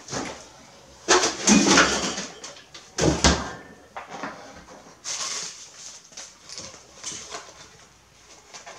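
Refrigerator door opened and shut and a plastic gallon milk jug set down on the counter: a loud clatter about a second in, a sharp knock about three seconds in, then softer handling noises.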